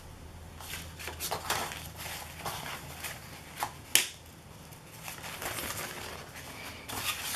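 Paper napkin and card being handled: irregular soft rustling and crinkling as the thin printed napkin is lifted and unfolded, with one sharp click about four seconds in.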